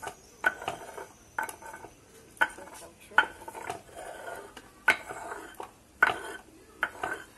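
Stone on stone: a hand-held grinding stone pushed back and forth over a flat grinding stone, grinding wet paste. About one stroke a second, each starting with a sharp scrape and trailing off in a short rasp.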